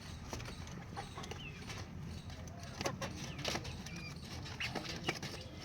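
Young chicks peeping now and then in short chirps, with scattered small clicks and a steady low rumble underneath.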